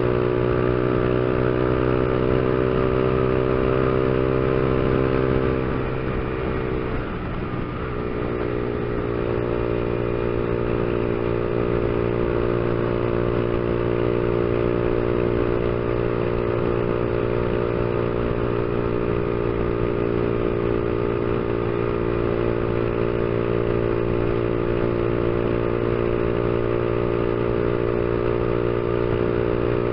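Honda CG 150 Fan's single-cylinder four-stroke engine running steadily at highway cruising speed, about 100 km/h. The engine note dips and wavers briefly about six seconds in, then settles steady again.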